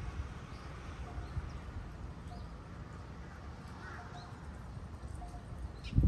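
Wind rumbling on the microphone, with faint short bird calls repeating every second or so and a few faint high chirps.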